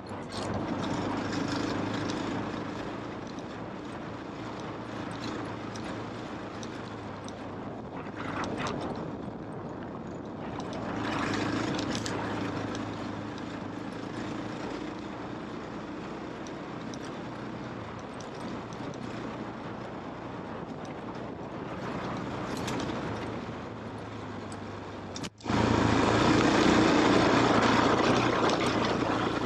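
KTM off-road motorcycle's engine running as it is ridden, swelling several times as the throttle opens. About 25 seconds in the sound cuts out for an instant and comes back louder.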